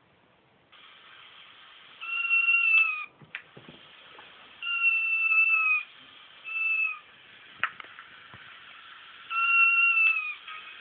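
A crying kitten's meows played through a laptop speaker: four drawn-out, high meows, each about a second long and dropping in pitch at the end, over a faint speaker hiss, with a few sharp clicks in between.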